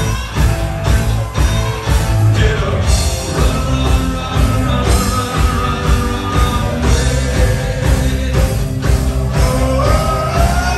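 Live rock band playing loudly: electric guitars, bass and drums at a steady beat, with a singer's voice over them.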